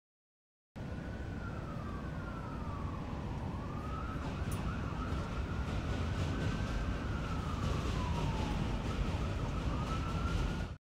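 Faint emergency-vehicle siren wailing slowly down and up over a steady city traffic rumble. It starts after a brief silence and cuts off suddenly at the end.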